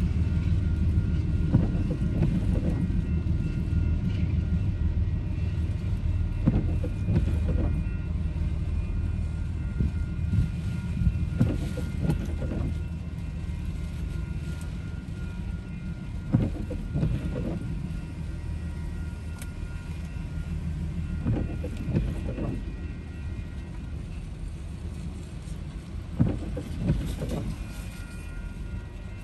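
Railroad crossing warning bell ringing steadily over a heavy low rumble of wind and rain, with the occasional passing car on wet pavement. The crossing is activated with no train present, a malfunction the uploader puts down to the storm.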